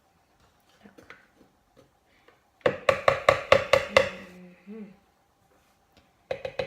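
A quick run of about ten sharp taps, a spoon knocking against a bowl, about three seconds in.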